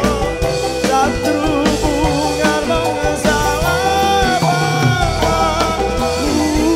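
Live dangdut koplo band playing: an electric guitar melody with bending, held notes over drum kit and kendang.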